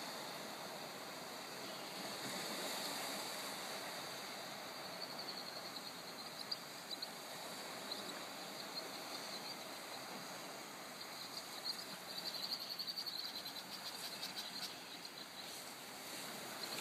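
Lake Erie waves washing on the shore: a steady rushing wash that swells and eases. Short high chirping trills come and go over it, most of them between about twelve and fourteen seconds in.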